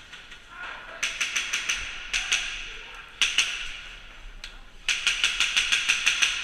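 Airsoft guns firing on full auto in four rapid bursts of about nine or ten shots a second, the longest burst near the end.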